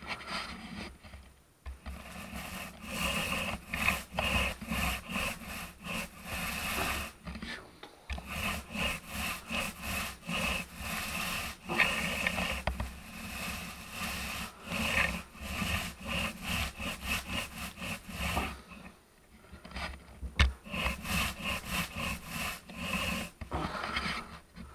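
Paint roller on a wooden extension pole rolled back and forth over a ceiling: a rhythmic rubbing, about two strokes a second, with short breaks about 8 and 19 seconds in.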